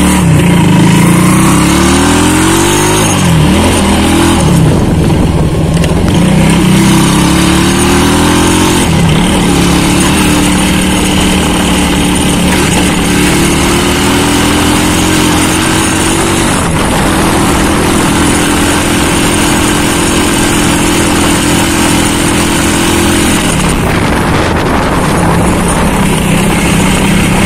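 Honda CB100 single-cylinder four-stroke engine pulling away and accelerating, its pitch rising and dropping back at each upshift about three times, then holding a steady cruise before the throttle is eased about four seconds before the end. Wind rushes over the microphone throughout.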